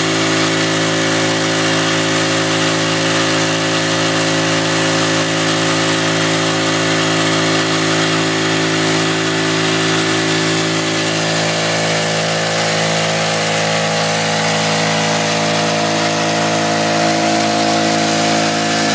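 Small engine on a suction dredge running steadily and driving its water pump, with water rushing through the dredge.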